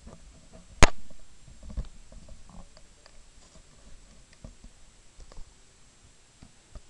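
A sharp knock close to the microphone about a second in, then scattered faint clicks and taps: noises from someone handling things at a computer desk.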